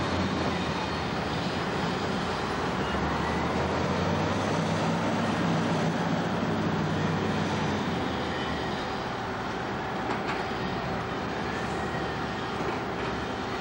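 Large wheel loader's diesel engine running hard while it lifts and carries a load of logs with its grapple, over a dense, steady mechanical din. The low engine drone fades about eight seconds in.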